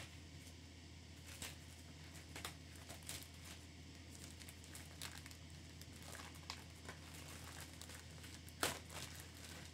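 Packaging around a book being handled and opened by hand: faint scattered rustles and small clicks, with one sharper click near the end.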